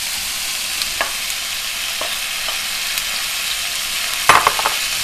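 Chicken and vegetables sizzling in hot oil in a pot as they are stir-fried, a steady frying hiss. A utensil ticks against the pot a few times, then clatters against it in a louder quick run near the end.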